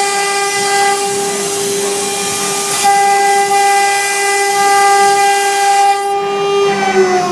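CNC router spindle running with a steady high whine over a loud hiss. About six seconds in the hiss drops away, and near the end the whine starts to fall in pitch as the spindle slows.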